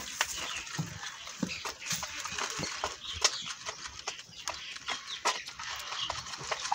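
Calf suckling from a goat's teat: irregular wet sucking and smacking clicks, a few a second.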